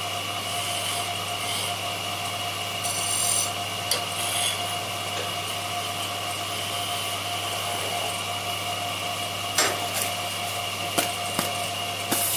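A power tool running steadily while it works wood, rubbing and abrading along the surface, with a few sharp clicks or knocks near the end.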